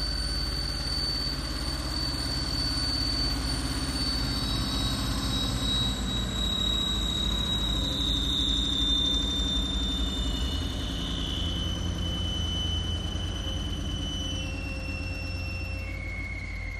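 Dump truck's diesel engine running low as the truck creeps over sand. Over it sounds a thin, high-pitched squeal that drops in pitch in several steps.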